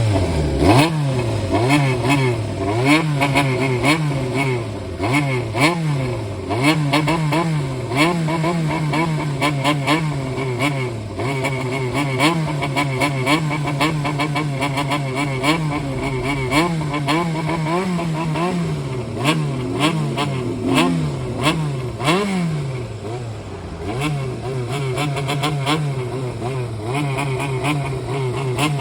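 Honda CBX400F's air-cooled inline-four revved in a low-rpm 'call' while the bike stands still: the throttle is blipped up and down over and over in a rhythm, through a Satake exhaust with a 50 mm silencer fitted. About three-quarters of the way through the blipping stops and the engine settles to a steady idle.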